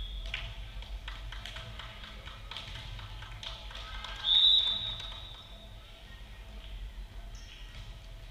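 A referee's whistle blows once, a single steady high note lasting under a second, about four seconds in. Scattered sharp taps and thuds of balls and play echo around the hall under low chatter.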